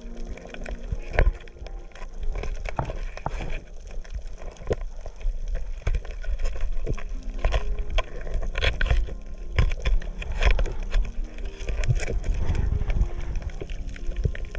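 Underwater sound heard through a camera housing: a low rumble of moving water with many scattered sharp clicks and crackles, the rumble growing louder in the last few seconds.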